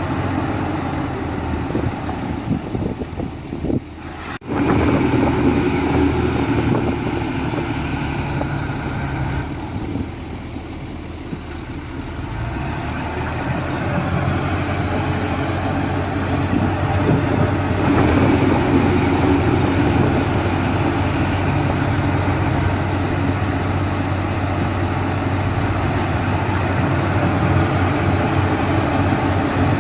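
Heavy diesel earthmoving and truck engines running steadily. About four seconds in the sound breaks off sharply and comes back louder, and a thin high whine comes and goes twice above the engine.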